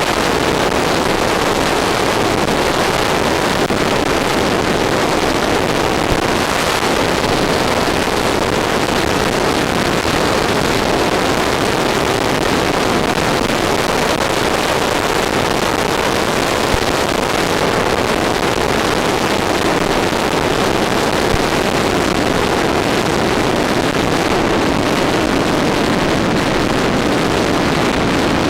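Steady rushing noise of air and motor from an RC model F-14 Tomcat in flight, heard through its onboard FPV camera, with wind buffeting the microphone; it holds even throughout with no rise or fall.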